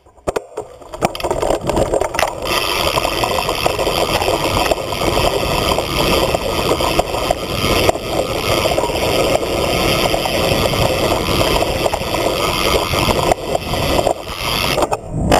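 BMX bike rolling fast on a dirt track, heard from a GoPro mounted on the bike: a steady rush of tyre and wind noise with scattered knocks and rattles over bumps. Near the end the noise briefly drops away, then there is a sharp hit.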